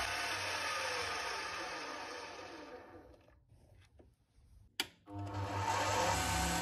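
Metal lathe switched off and spinning down, its falling whine fading away over about three seconds. Near the middle a single sharp click, then the lathe starts up again, its pitch rising, and runs steadily at speed.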